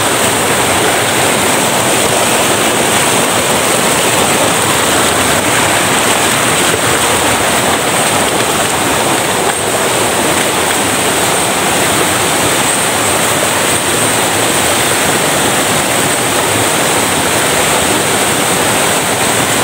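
Mountain stream rushing over rocks and small waterfalls: a loud, steady rush of water with no break.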